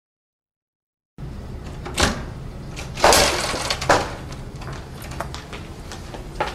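About a second of silence, then school hallway background noise with a sharp bang about two seconds in, a louder crashing clatter a second later, and another bang just after it.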